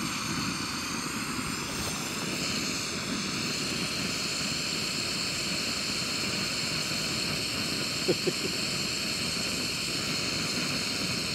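Jetboil stove's gas burner running with a steady hissing roar. Two brief knocks about eight seconds in.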